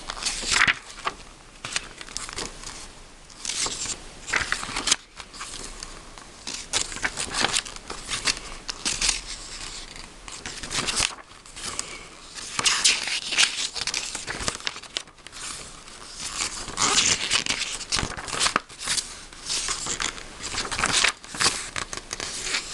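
Glossy paper booklet pages being turned and handled close to the microphone: irregular rustling with louder swishes as the pages flip.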